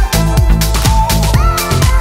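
Background electronic dance music with a steady beat.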